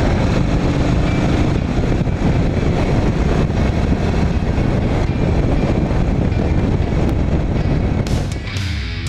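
1985 Harley-Davidson Sportster 1000 Ironhead's air-cooled V-twin engine and exhaust running under way on the road, with wind rush. Near the end the engine gives way to rock music.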